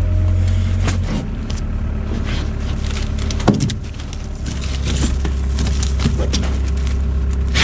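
A truck engine idling as a steady low drone, its pitch shifting about a second in and again around four and a half seconds. Over it come knocks and scrapes from large rolls of plastic mesh being handled and rolled across the steel flatbed, with one sharper knock about three and a half seconds in.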